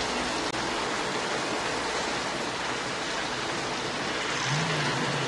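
Heavy rain pouring steadily. A short low tone slides up near the end.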